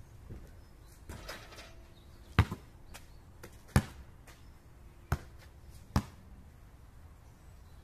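Basketball bouncing on an asphalt court: four sharp smacks about a second apart, the first followed by a smaller rebound. A short rustle comes about a second in, before the bounces.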